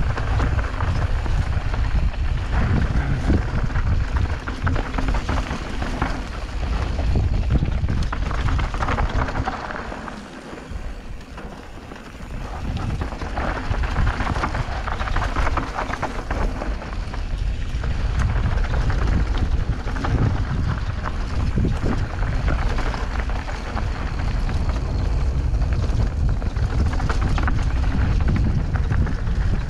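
Wind buffeting a mountain biker's camera microphone over the crunch and rattle of a mountain bike descending a dirt trail, with scattered sharp clicks and knocks from the bike. The noise drops for a couple of seconds about ten seconds in, then picks up again.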